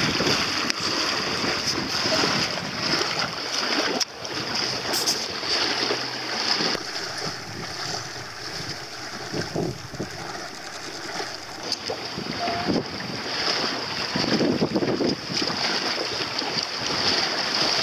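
Wind buffeting the microphone and water splashing along the hull of a small sailing dinghy under way, a steady rushing noise.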